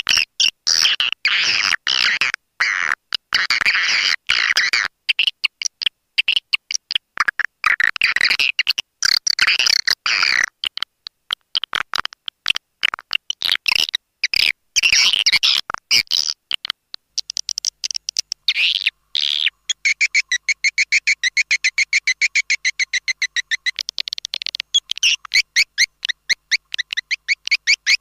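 Recorded twittering calls of edible-nest swiftlets, played as a lure call for swiftlet houses: dense, choppy bursts of high chirping that cut in and out abruptly. About two-thirds of the way through, the calls change to a fast, even run of chirps.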